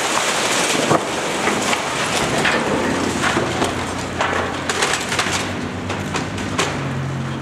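Brick building collapsing during demolition: a rushing rumble of falling rubble that slowly eases, broken by many sharp cracks and clatters of brick and timber debris landing.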